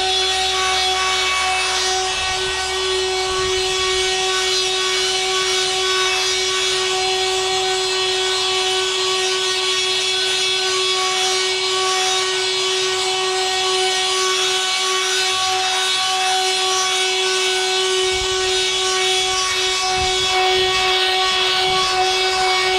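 Vonroc oscillating multi-tool with a triangular sanding pad running steadily and sanding weathered wooden planks: a steady buzz at one pitch over the scratching hiss of sandpaper on wood.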